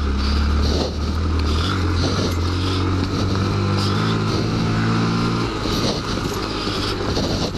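Honda Grom's 125 cc single-cylinder four-stroke engine running under throttle over trail whoops. The engine note climbs in steps and drops back about two-thirds of the way through, with knocks and rattles from the bumps and wind noise on the microphone.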